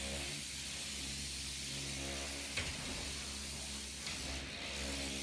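Pressure washer spraying concrete: a steady hiss of the water jet over the even hum of its motor and pump. There is one short click a little past halfway.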